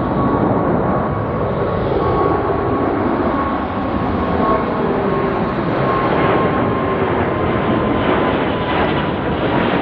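Jet engines of an Airbus A350-900, its Rolls-Royce Trent XWB turbofans, climbing out after takeoff and passing close overhead: a loud rushing rumble with a thin steady whine over it, building in the first moment then holding.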